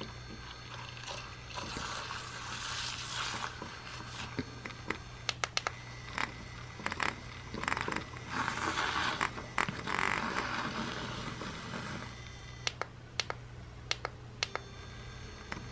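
Handheld electric milk frother running in a mug of coffee with oat creamer, its spinning wire whisk churning the liquid into foam. There are two longer stretches of frothy swishing, and scattered sharp clicks throughout.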